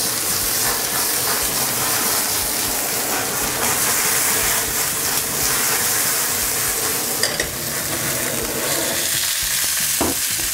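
Lamb pieces sizzling steadily in a hot frying pan over a gas flame, with the rushing hiss of a handheld butane blowtorch flaming the meat's surface.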